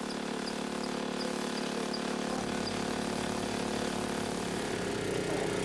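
A machine engine running steadily at a railway track-laying site, a constant drone with a slight change in pitch near the end.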